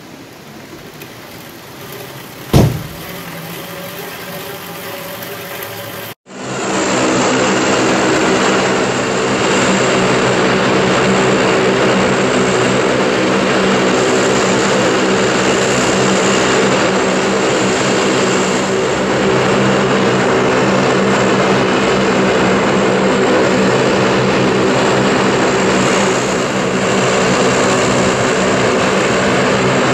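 A three-blade propeller with five-foot blades, rebuilt from a wind turbine and driven by a motor on 12 volts, whizzing around with a loud, steady whirring drone. About two and a half seconds in there is a single sharp thump, and a little later the sound cuts out for a moment before the steady whirring begins.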